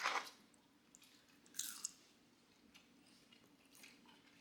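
A person biting into and chewing french fries, with a few short crunchy bursts, one about a second and a half in and one near the end.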